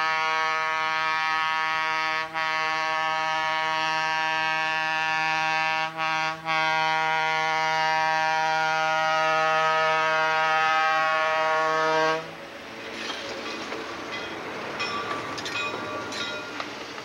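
Diesel locomotive horn sounding one long blast with three brief breaks as the engine comes up to a grade crossing, cutting off about twelve seconds in. It is followed by the rumble of freight cars rolling past, with scattered clicks from the wheels.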